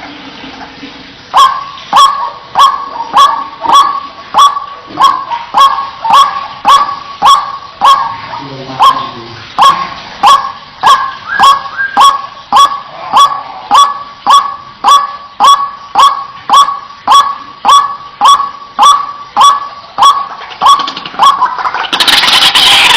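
White-breasted waterhen repeating a single sharp 'kwak' call in an even series, about three calls every two seconds. A louder, denser stretch of calling breaks in near the end.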